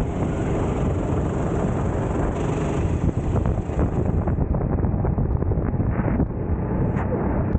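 Go-kart engine running at racing speed, heard from on board, with heavy wind buffeting on the microphone.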